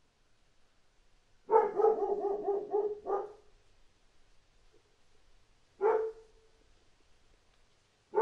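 A dog barking: a quick run of about eight barks over a second and a half, then a single bark a few seconds later and another at the very end.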